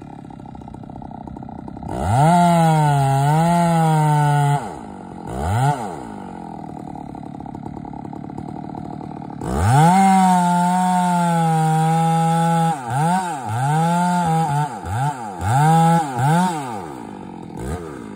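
Two-stroke chainsaw idling, then run at full throttle twice while cutting into the base of a large tree, its pitch wavering under load in the first stretch. Near the end the throttle is blipped several times in quick succession.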